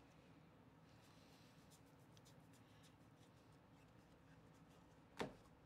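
Near silence with faint soft ticks of baseball cards being slid and flipped through a stack by hand, and one short dull thump about five seconds in.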